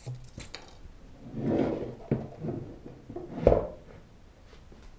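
Swivel screen of an AVEL AVS1205MPP headrest monitor being turned by hand from portrait to landscape: soft rubbing and handling of the plastic housing, a click about two seconds in, and a thump about three and a half seconds in as the screen comes round.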